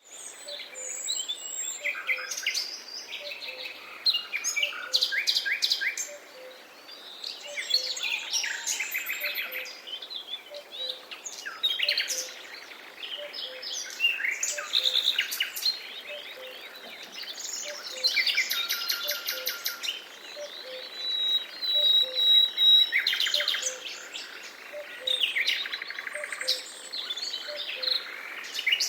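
Several songbirds singing at once in a forest chorus of overlapping trills, chirps and whistled phrases, with one long held whistle about two-thirds of the way in. Beneath them a soft low note repeats about twice a second.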